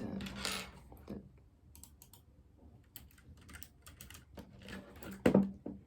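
Keys being pressed on a Keychron low-profile mechanical keyboard: a quick clatter of key clicks at first, then scattered single clicks, with a louder knock near the end.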